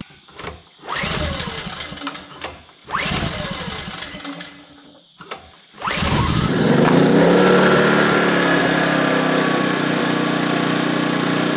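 Yamaha MZ80 single-cylinder four-stroke engine of a GENSAFE GHS2000i inverter generator being pull-started: a few pulls of the recoil starter, then it catches about six seconds in and runs steadily.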